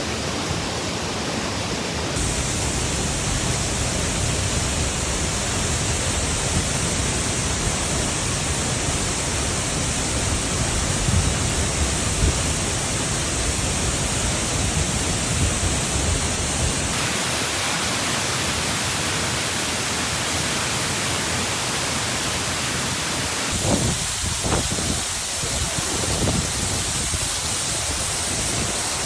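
Large waterfall: a loud, steady rush of falling water. The character of the noise shifts abruptly a few times, about two seconds in, past the middle and near the end.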